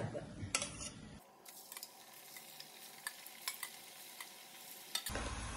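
Thenga vada (coconut-rice patties) deep-frying in hot coconut oil: a steady sizzle with scattered crackles, after a few knocks of a metal spatula in the first second. The frying grows louder at about five seconds in.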